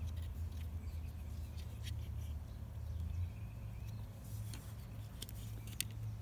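Faint handling noises from fingers touching and turning a die-cast and plastic toy car: light rubbing, then a few small sharp clicks after about four seconds, over a low steady hum.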